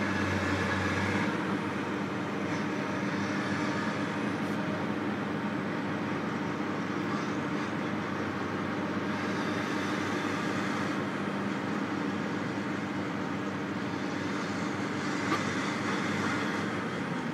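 Heavy diesel logging machinery running steadily, its engine drone holding even, with a single sharp knock near the end.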